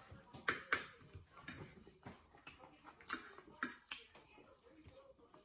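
Eating sounds at a table: irregular sharp clicks and clinks, about ten in a few seconds, as two people eat steak and mashed potatoes with knives and forks.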